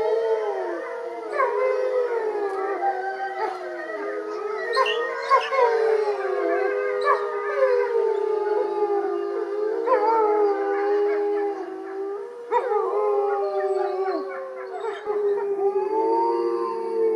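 Several wolves howling together in a chorus: many long howls overlap at different pitches, sliding up and down, with shorter sharp rising-and-falling calls breaking in now and then. The chorus is set off by one male howling in protest as his mate is led away, and the rest of the pack joining in.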